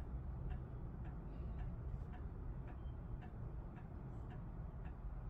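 Steady, even ticking, a little under two ticks a second, over a low rumble.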